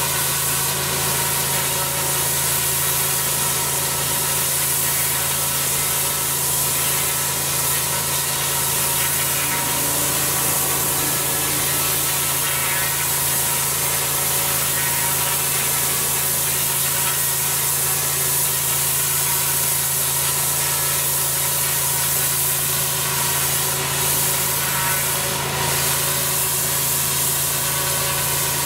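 High-pressure water jet from a twin-headed turbo lance blasting block paving: a steady hiss over the constant hum of the pressure washer's engine running.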